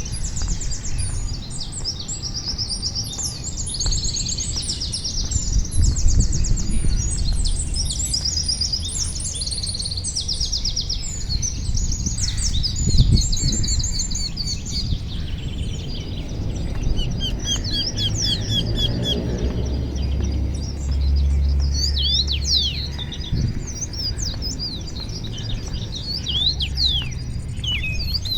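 Several songbirds chirping and trilling: rapid high trills in the first half give way to quick, down-sweeping chirps. A steady low rumble runs underneath.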